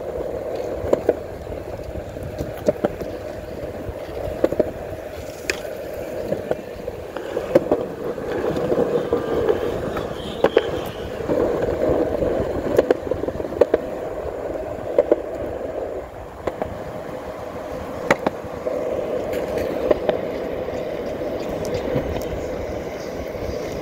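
Steady rolling hum with wind rumbling on the microphone, broken by sharp clicks about once every second or two.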